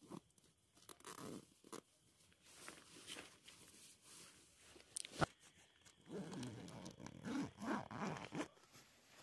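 Sleeping bag zipper pulled in short rasping strokes, with rustling of the bag's quilted fabric and a sharp click about five seconds in.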